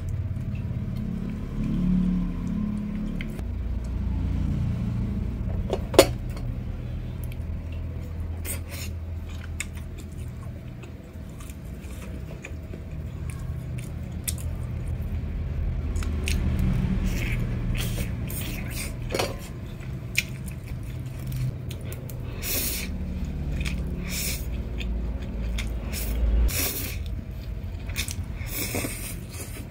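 Close-up eating sounds: chewing chicken and instant noodles, with a metal spoon and chopsticks clicking against the bowls now and then, one sharp click about six seconds in. A low steady rumble runs underneath.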